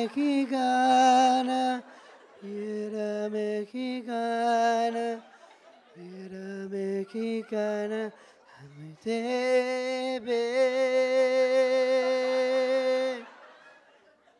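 A man singing a slow, hymn-like chant into a microphone, imitating women praying on a pilgrimage. It comes in several drawn-out phrases, with a few spoken words about eight seconds in, then one long note held for about four seconds.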